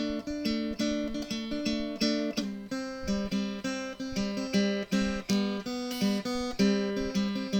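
Outro music: strummed acoustic guitar playing a steady rhythmic chord pattern.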